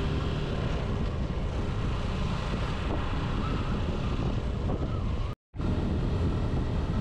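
Suzuki Gixxer SF 155 motorcycle's single-cylinder engine running on the move, with steady wind noise on the microphone. The sound drops out completely for a split second about five seconds in.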